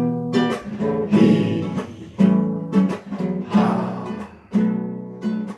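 Background music: an acoustic guitar strumming chords, each chord ringing out and fading before the next strum.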